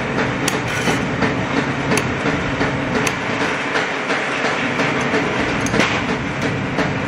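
Large hand shears cutting thin stainless steel sheet, with sharp clicks every half second to a second as the blades close. Behind it runs the steady hum and clatter of workshop machinery.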